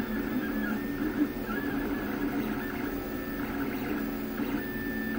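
FDM 3D printer running a PLA print, its stepper motors whining in short tones that shift pitch as the print head changes speed and direction, over a steady hum.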